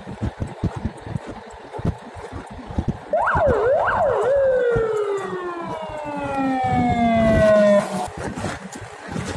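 Fire engine siren: about three seconds in, two quick rising-and-falling whoops, then one long falling wail that cuts off abruptly about a second and a half before the end. Before the siren, a run of clicks and crackles.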